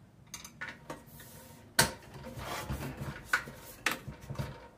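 Metal clinks, taps and knocks of hand tools and parts being handled on a Predator 212 small engine as its fuel tank is being unbolted. One sharp knock about two seconds in is the loudest, with lighter clicks before and after.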